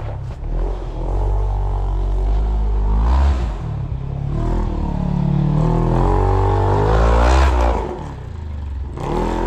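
Polaris RZR side-by-side's engine revving as it drives through snow. The revs rise and fall, climb over several seconds to a peak, then drop sharply near the end.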